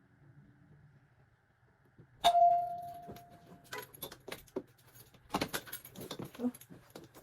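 Things being handled and set down while settling in at a desk: a sharp metallic clink about two seconds in that rings briefly, then a run of irregular light clicks and clatters.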